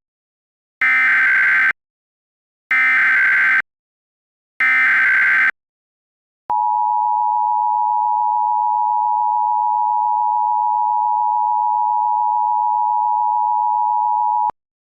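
Emergency Alert System SAME header: three short bursts of digital data tones about a second apart, then the EAS two-tone attention signal held steady for about eight seconds and cutting off sharply. It opens a child abduction emergency (AMBER Alert) broadcast.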